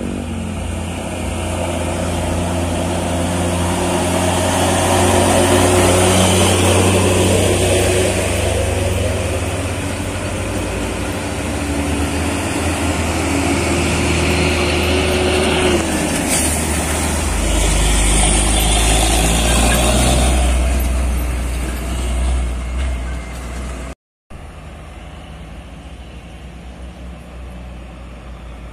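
Diesel engines of heavily loaded trucks labouring up a steep hill, loud and steady with a deep hum, for about twenty seconds. After a brief dropout near the end, a quieter, more distant truck engine.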